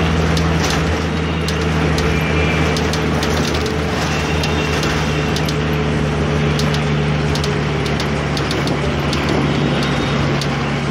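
Inside a moving bus: the engine runs at a steady drone under road and wind noise, while the bus body and window fittings rattle with frequent sharp clicks.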